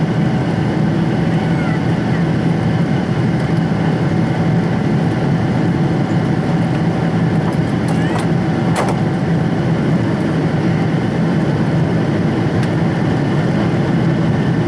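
Steady cabin noise of a Boeing 777-200ER airliner in flight: the engine and airflow drone with a low hum. There is one brief click about nine seconds in.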